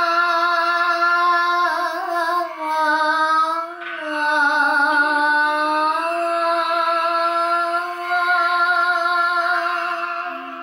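A schoolgirl singing a solo unaccompanied, in long held notes with a wavering vibrato and a short break for breath about four seconds in.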